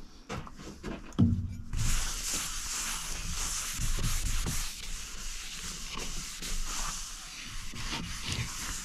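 A cloth wiping mineral oil over an oak chopping board: a steady hissing rub that starts about two seconds in and keeps going as the cloth works back and forth over the wood.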